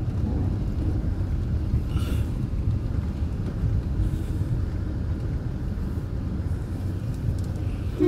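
Steady low rumble of a car driving slowly, its engine and tyre noise heard from inside the cabin.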